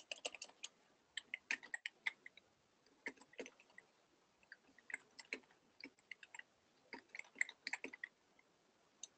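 Faint, irregular bunches of quick light clicks from a computer keyboard and mouse being used, stopping about eight seconds in.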